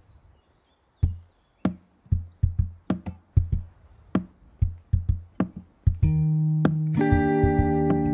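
Background music: a beat of sharp plucked and drum hits starts about a second in, and sustained chords join about six seconds in.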